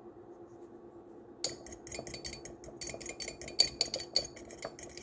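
Rapid clinking of a metal utensil against a bowl or dish, several strikes a second with a bright ring to each, starting about a second and a half in. A faint steady hum runs underneath.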